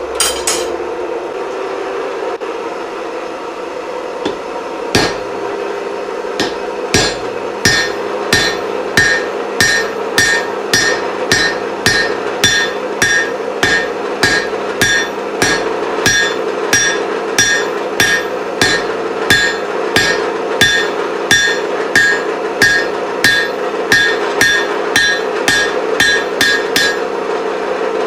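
Blacksmith's hammer striking hot iron on an anvil, cutting the burned end off a chisel on a hardy hot cut: a single blow about five seconds in, then a steady run of about two ringing blows a second until near the end. A steady hum runs underneath.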